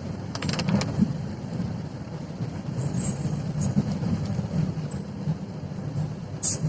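Steady low rumble of a moving vehicle, with a short run of clicks about half a second in.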